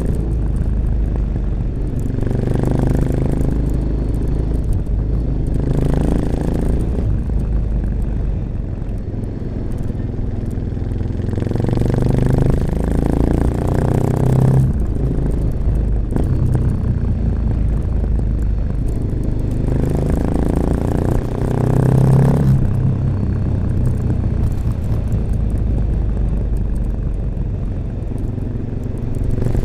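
A 1986 Honda XL600RM's air-cooled single-cylinder four-stroke engine running through an aftermarket XRacing exhaust with its dB killer fitted, riding under load. The revs build up and then drop off sharply three times, as the throttle is rolled on and then shut or a gear is changed.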